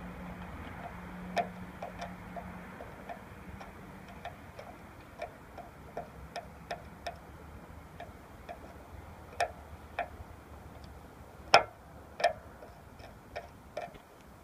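A run of light, irregularly spaced clicks and taps, about two a second, with two sharper ones about three-quarters of the way through, over a faint low hum.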